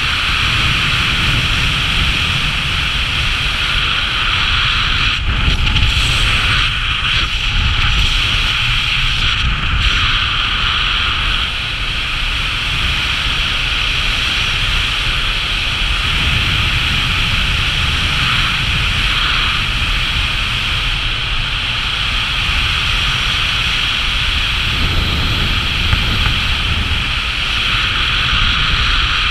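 Wind rushing over a body-mounted camera's microphone during a fast speed-flying descent. It is a loud, steady low buffeting rumble with a constant hiss above it.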